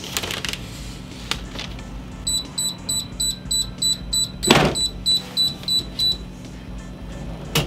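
Sublimation heat press timer beeping quickly, about three short beeps a second, signalling that the pressing time is up. About halfway through the beeping, the press is lifted open with a loud clunk, and the beeping stops soon after.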